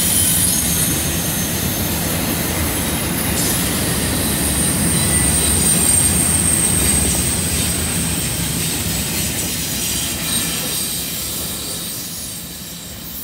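Double-stack intermodal well cars rolling past on a curve: a steady rumble of wheels on rail with high, sustained wheel squeal from the flanges grinding on the curve. The sound fades near the end as the last car goes by.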